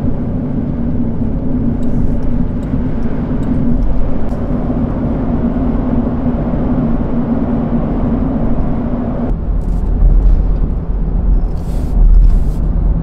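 Land Rover Defender driving along a road: steady tyre and engine noise with a drone that drops away about nine seconds in, leaving a low rumble with a louder swell near the end.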